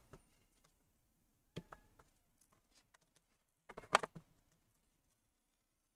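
A few faint clicks and taps of hands and tool on the laptop's plastic bottom cover and rubber strip: one click about a second and a half in, and a short cluster of clicks around four seconds in, quiet in between.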